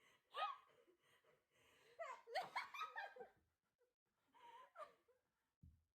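People laughing and breathing hard in three short bursts: right at the start, about two seconds in, and again near the end.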